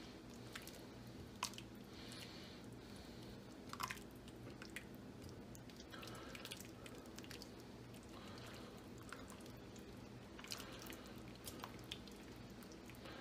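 A silicone spatula stirs thick, creamy chili in a Crofton enameled cast iron Dutch oven, giving soft wet squelching and slopping, with scattered light clicks of the spatula against the pot. A faint steady hum sits underneath.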